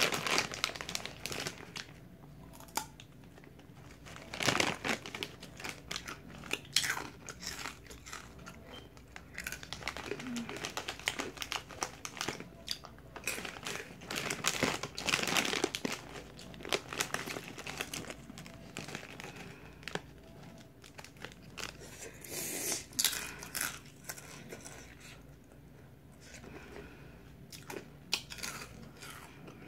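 Crunchy rolled corn tortilla chips (Fuego Takis) being bitten and chewed, with the snack bag crinkling as it is handled. The sounds come in irregular bursts.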